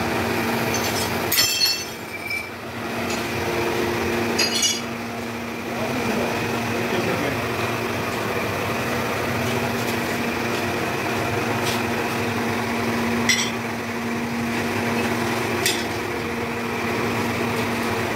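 A steady machine drone with a constant low hum, broken by a few sharp metallic clinks: a cluster near the start, another about four and a half seconds in, and single ones later. The clinks are the steel pouring shank and crucible knocking against the metal mould boxes as molten metal is poured into the row of moulds.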